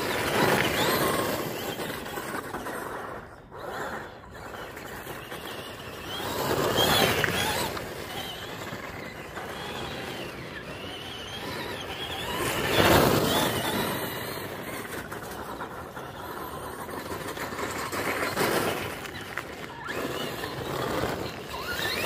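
Traxxas Bigfoot RC monster truck with a brushed electric motor, whining as it speeds up and slows down, its tyres crunching over loose gravel. It makes several loud surges as it accelerates and passes, with quieter stretches between.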